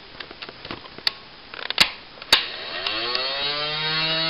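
Plastic clicks and a few sharp snaps from handling a Nerf blaster, then an electric motor spinning up quickly and settling into a steady whine about three seconds in.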